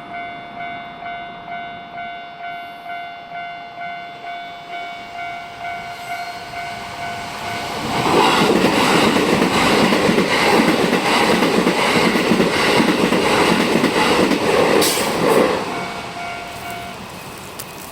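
Japanese level-crossing warning bell ringing in a steady pulsing rhythm, about three dings every two seconds. About eight seconds in, a Keikyu train runs through the crossing loudly for some seven seconds, drowning the bell, which is heard again as the train clears.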